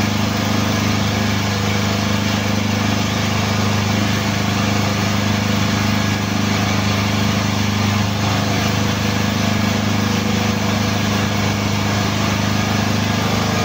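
Hydraulic power unit of a forklift solid-tyre press running with a steady, loud hum while the press holds the tyre down so the lock ring can be fitted.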